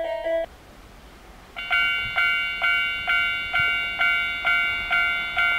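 Japanese railway level-crossing warning bell ringing about twice a second, a repeated electronic ding that starts about a second and a half in and warns of an approaching train. In the first half second a short electronic chime melody ends.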